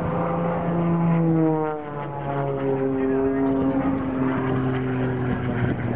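Single-engine aerobatic propeller plane flying overhead. Its engine and propeller drone falls in pitch about two seconds in, then holds steady.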